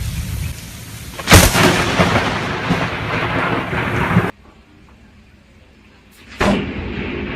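Thunderclap from a close lightning strike: a sudden sharp crack about a second in, followed by rumbling and rain hiss that cut off suddenly. A second sudden crack comes near the end, followed by steady rain.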